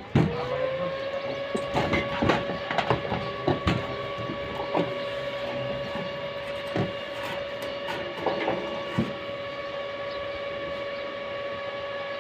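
A motor-driven machine starting up: a steady whine climbs for about half a second, then holds at one pitch. Scattered sharp knocks and clacks come over it during the first nine seconds or so.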